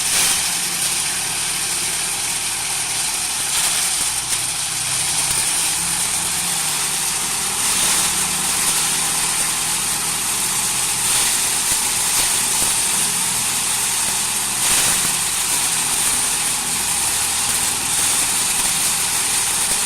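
Self-loading concrete mixer's diesel engine running steadily, with a constant high hiss over the low engine hum.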